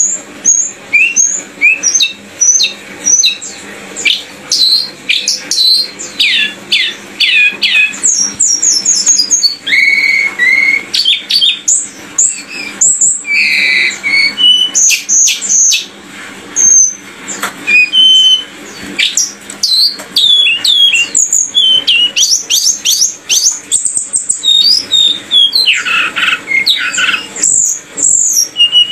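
A songbird singing a fast, unbroken run of varied chirps and short sweeping whistles.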